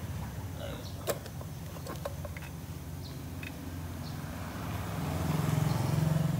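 A motor vehicle engine running steadily, getting louder near the end, with a few light clicks about one and two seconds in.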